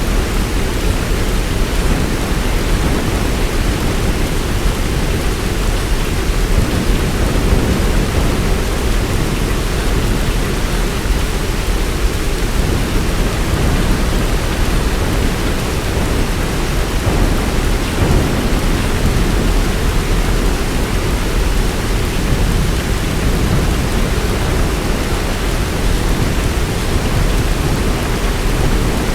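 Heavy rain falling steadily, a dense, even hiss with most of its weight in a deep low rumble and no separate claps or drops standing out.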